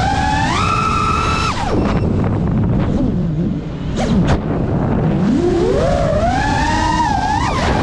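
FPV quadcopter's electric motors and propellers whining, the pitch following the throttle: high and held at first, dropping away about two seconds in, then climbing steadily from about five seconds in, over a rush of wind. Two short clicks about four seconds in.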